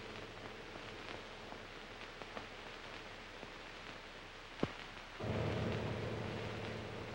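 Steady hiss and crackle of an old film soundtrack, with faint scattered clicks and one sharp click about four and a half seconds in. About five seconds in, a low held tone with overtones comes in suddenly.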